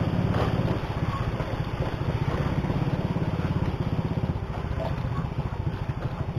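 Motorcycle engine running steadily while riding, with a rapid, even exhaust pulse.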